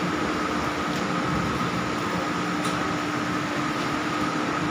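Steady room background noise: an even hum and hiss with two faint steady tones, one low and one higher, unchanging throughout.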